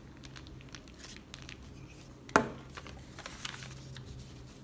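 Brown paper bag and cardstock rustling faintly as they are handled while glue is put down, with scattered small clicks and one sharp tap about two and a half seconds in.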